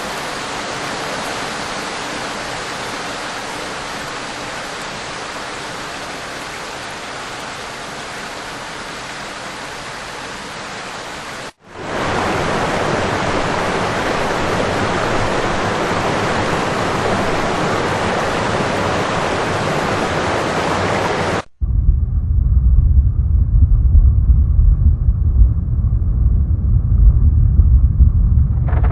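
Nature sound recordings played one after another: two stretches of steady rushing water noise, cut apart about 11 seconds in, then, about 21 seconds in, a loud deep rumble.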